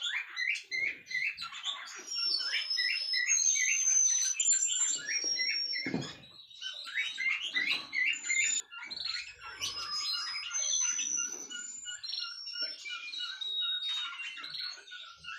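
Domestic canaries chirping and whistling: quick runs of short repeated chirps mixed with long, clear high whistled notes.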